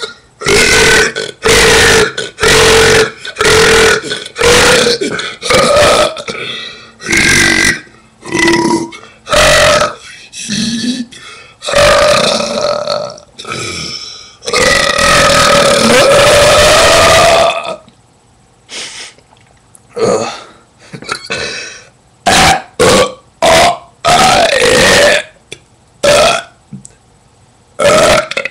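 A person burping loudly on purpose, a rapid string of short burps about one a second. In the middle comes one long burp of about three seconds, then, after a short pause, more short burps.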